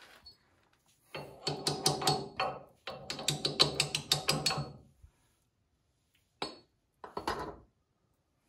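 Quick metallic tapping, about six strikes a second, in two runs of roughly a second and a half, as a part is worked onto a tractor's front axle spindle; two short clinks follow later.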